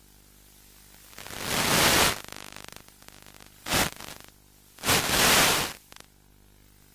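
Loud bursts of radio static hiss from an analog Fatshark FPV video downlink, three swells that cut off sharply, over a faint steady hum. The hiss is the sign of the receiver losing signal as the wing flies low and banks.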